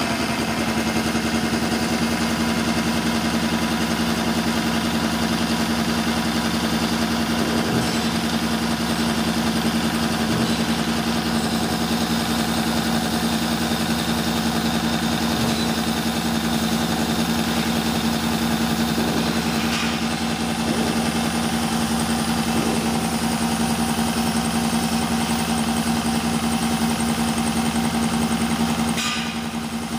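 Kotec plate beveling machine running steadily, a loud even motor hum with one strong fixed pitch, as its milling cutter head travels along the plate edge cutting a 45-degree bevel. The hum dips briefly near the end.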